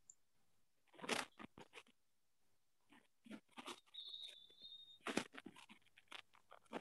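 Faint scattered clicks and crackles, in short clusters, with a brief steady high tone about four seconds in.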